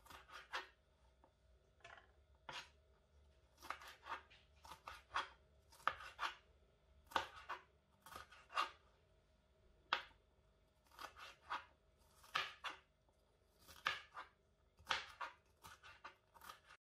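Kitchen knife dicing bell peppers on a plastic cutting board: sharp cuts tapping the board in short, irregular runs of a few strokes with brief pauses between.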